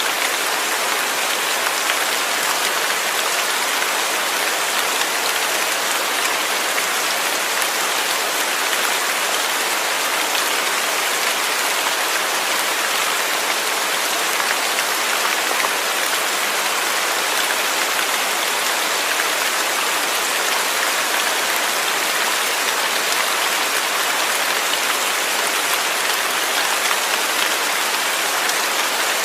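Steady rain falling, a constant even hiss of many drops on a surface with no change in strength.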